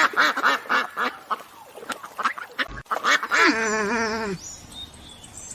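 Duck quacking in a rapid run of calls, about four a second. About three seconds in, another animal gives one wavering, quavering call that lasts about a second.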